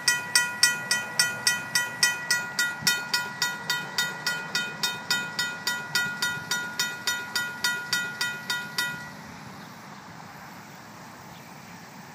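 RACO mechanical crossing bell on a railroad crossing signal ringing, about three strikes a second with a clear metallic ring. It stops abruptly about nine seconds in as the crossing deactivates, leaving only faint background noise.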